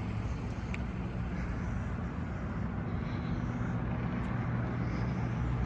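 A car engine running with a steady low hum and some road or wind noise, growing slightly louder near the end.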